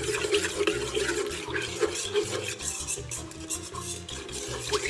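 A spoon stirring a thin milky liquid in a stainless steel mixing bowl: the liquid swishes, and the spoon repeatedly scrapes and clinks lightly against the steel.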